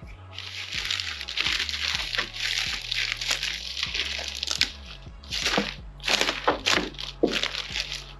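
Plastic packaging of a transmission rebuild kit crinkling and rustling as it is handled, steady at first and then in separate short bursts in the second half.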